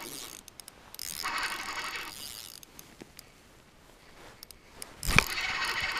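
Spinning reel being cranked in spells, its gears and line-roller clicking as a lake trout is reeled up through the ice hole. Reeling runs for about a second and a half, pauses, then starts again near the end with a sharp thump.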